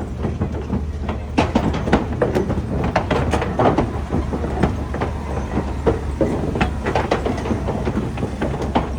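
Safari ride truck driving over a rough track: a steady low engine hum under irregular rattles and knocks from the vehicle bumping along.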